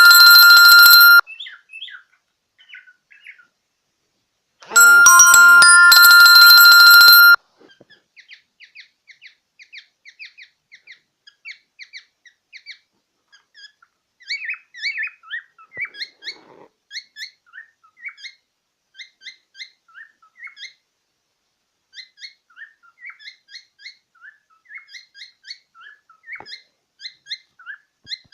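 Two loud bursts of a ringtone-like electronic melody in the first seven seconds. Then a cockatiel chirps on and on in short, quick, repeated notes.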